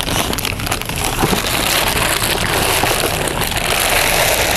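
Raw chicken pieces being washed by hand in water: steady splashing with small irregular knocks and rustles.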